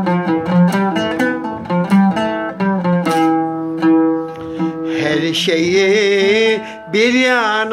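Kanun plucked in quick runs of separate notes in the Hicaz makam, with one longer held note about three seconds in. From about five seconds in, a man's voice joins with wavering, wordless sung tones over the strings.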